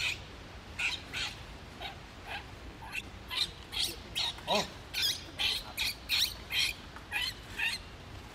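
Baby macaque squealing in a run of short, high-pitched cries, about two or three a second, as its mother handles it. About halfway through comes one lower, wavering cry.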